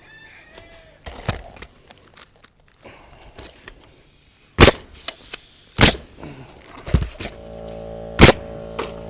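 Sharp knocks on the roof ridge cap as it is being fitted, five loud strikes spaced about a second or more apart. Background music with held tones comes in over the last two seconds.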